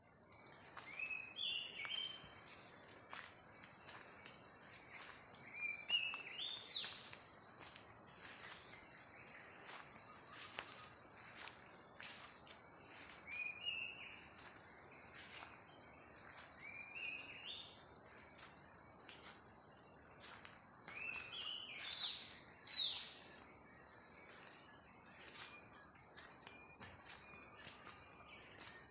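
Steady high-pitched chorus of insects, with a bird giving short rising calls in small groups every few seconds, the loudest about a quarter of the way in and again about three quarters in.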